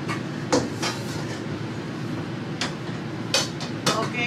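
Frying pans and a glass lid clattering as they are stacked into an upper kitchen cabinet: about five sharp knocks and clanks, spread out, over a steady low hum.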